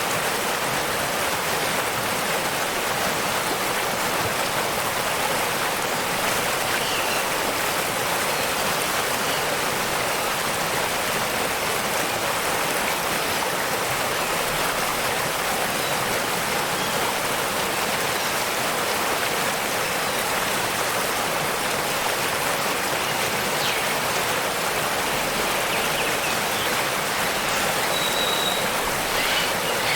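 Waterfall water rushing and splashing in a steady, even wash of noise, with a few faint, brief high chirps, most of them near the end.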